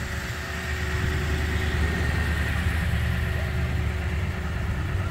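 Toyota Tundra's 5.7-litre i-Force V8 idling steadily, a low even rumble.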